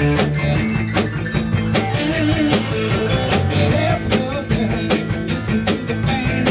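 A rock band playing an upbeat song: electric guitars and bass over a drum kit keeping a steady beat of about three strokes a second, with a bending melodic guitar line in the middle.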